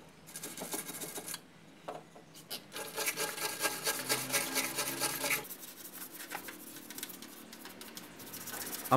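Steel wire brush scrubbing greasy metal on a car engine, a scratchy rasping in quick repeated strokes, quieter for a moment early on and strongest in the middle.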